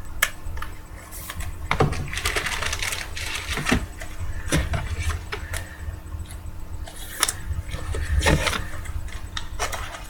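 Irregular light clicks, taps and brief rustles of hands handling small objects at a table, over a steady low hum.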